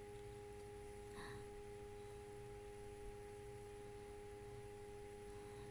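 Near silence under a faint steady hum made of a few unchanging tones.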